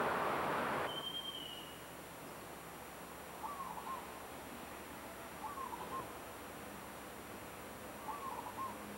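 A bird calls three times, a short wavering call every two to three seconds, over a faint background. A single high whistled note comes just after a second in. Before it, a rushing noise cuts off suddenly about a second in.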